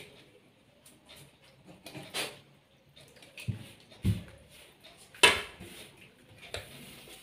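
Hands working flour and water into dough on a ceramic plate, with a few separate knocks and clinks of a plastic bottle and hands against the plate and table. There are two dull thumps about halfway through, and the loudest sharp knock comes a little after five seconds in.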